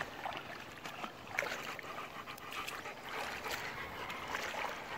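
Shallow sea water splashing and sloshing as dogs wade through it, small irregular splashes over a steady wash of water.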